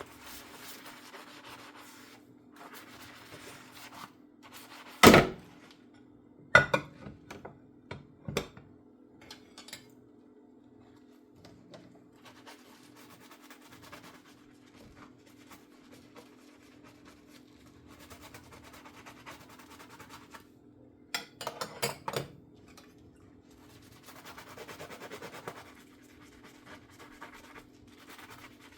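Dishes being handwashed in a kitchen sink: a sponge scrubbing in stretches, a sharp ringing clank of a dish about five seconds in, a few lighter knocks soon after, and a quick clatter of dishes near the end. A faint steady hum runs underneath.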